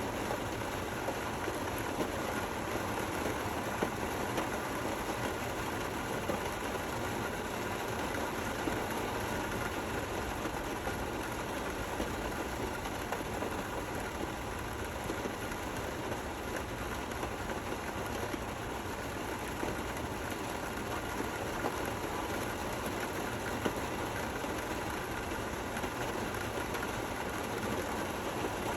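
Steady rain falling, an even hiss and patter with a few louder drop ticks here and there.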